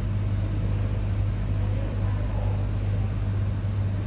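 A steady low hum over a constant haze of background noise, unchanging throughout.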